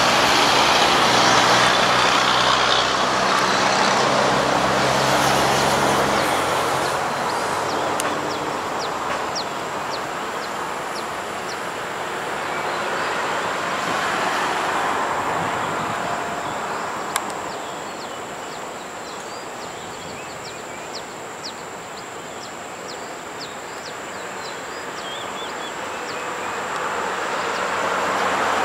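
A diesel-hauled passenger train pulling out. The locomotive's engine runs steadily for the first several seconds, then the coaches roll past with a continuous wheel-on-rail rumble and a run of faint high ticks. The rumble fades in the middle and grows again near the end.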